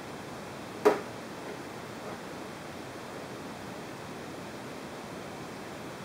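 Steady background hiss, with one sharp plastic click about a second in as the hand-made plastic RC car body parts are handled and fitted together.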